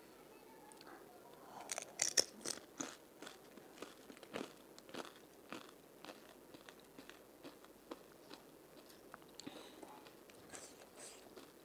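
A crisp fried panipuri shell crunching as it is bitten into, loudest about two seconds in, followed by steady chewing with small crackles.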